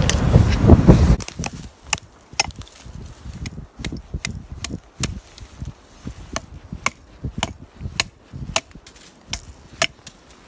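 Wind buffeting the microphone for about the first second, then a steady run of sharp chopping blows into wood, about two a second.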